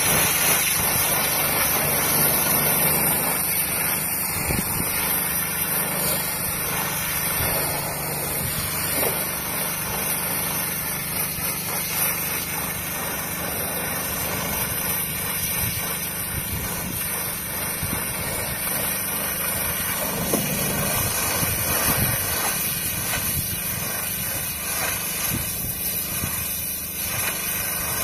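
Pressure washer running, its jet of water spraying onto rubber car floor mats on wet concrete: a steady hiss of spray over a machine hum. The low hum drops away about three-quarters of the way through.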